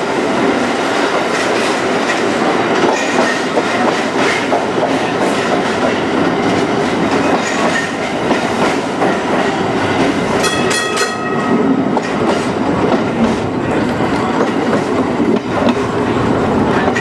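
Historic electric streetcar running along its track, its wheels clicking over the rails with a steady rumble. About ten seconds in, a short burst of a repeated high ringing tone sounds.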